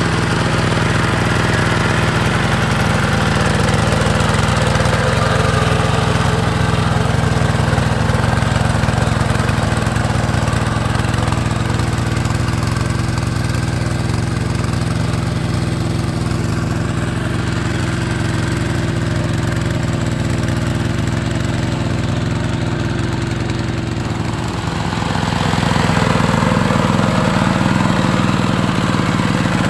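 Two-wheel hand tractor's single-cylinder diesel engine running steadily under load as its rotary tiller works through paddy mud. The engine note dips briefly a few seconds before the end, then runs on a little louder.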